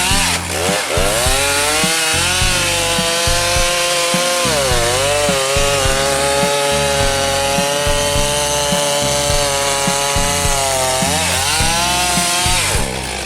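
Two-stroke chainsaw running at high revs, its pitch sagging and recovering about half a second in, around four and a half seconds in, and again near the end as the chain bites into wood.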